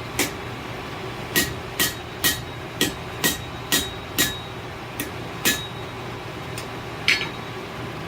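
Hammer blows on hot steel over an anvil, about a dozen strikes, mostly about two a second, each with a short metallic ring, then a pause and one last blow near the end. This is the smith hammering the bend of a hook forged from a railroad spike.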